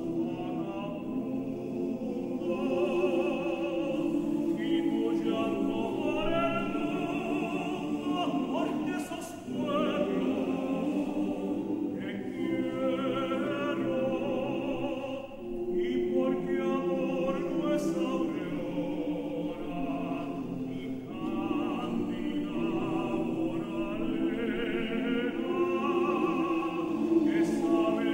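Men's choir singing, with two brief breaks between phrases, about a third of the way in and again about halfway through.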